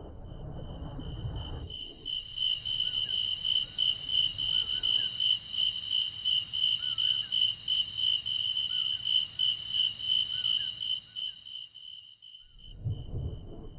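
Crickets chirping in a steady, fast-pulsing high trill, with a few faint short chirps at a lower pitch. A low rumble sits under it for the first two seconds, and the trill fades out near the end.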